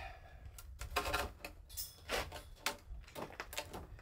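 A long timber beam being shifted by hand against brick and stone masonry: a series of irregular wooden knocks and scrapes, about half a dozen in a few seconds.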